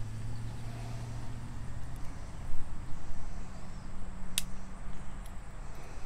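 A Victorinox pocket knife being handled as its tools are worked, with a sharp metallic click about four seconds in as a tool snaps into place. A low steady hum runs underneath.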